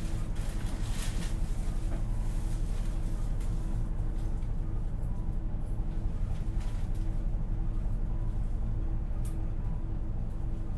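Hino Blue Ribbon City KL-HU2PREA city bus heard from inside: its diesel engine runs at a steady speed with an even low hum, and faint clicks and rattles come about a second in and near the end.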